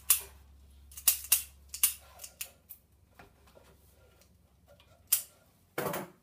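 A metal utensil scraping and clicking against a pizza pan as pizza slices are pried up and lifted out. There are several sharp scrapes in the first two and a half seconds, then one about five seconds in and a longer one near the end.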